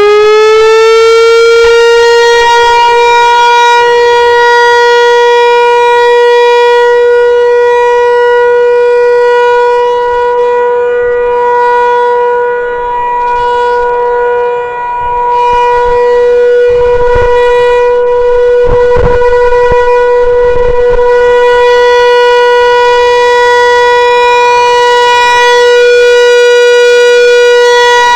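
Federal Signal 508 rotating outdoor warning siren sounding the steady Alert tone. It finishes winding up to full pitch in the first second, then holds one steady, loud pitch, swelling and fading a little as the rotating head turns.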